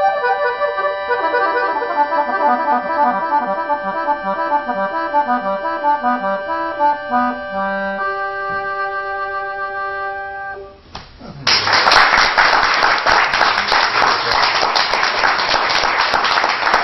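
Hohner Gola accordion playing the closing bars of a tune: a run of short notes stepping down in pitch under held upper notes, then a sustained final chord that ends about eleven seconds in. Audience applause breaks out right after.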